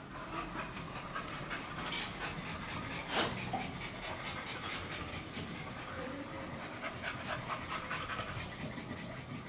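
Pit bulls panting steadily, with two sharp clicks about two and three seconds in.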